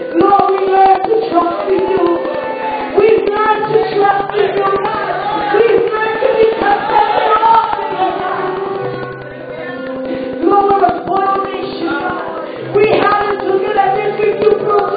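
Live worship music: a group of singers, women's voices to the fore, singing a praise song over held keyboard notes.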